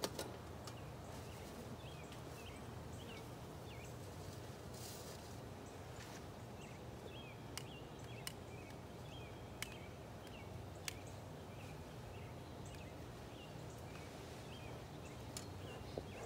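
A small bird chirps over and over in short, quick notes over a steady low background noise, with a few sharp clicks and taps in between.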